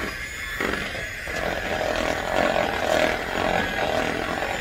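Electric kitchen mixer running steadily, beating a thick cream cheese filling in a bowl; it gets a little louder about a second and a half in.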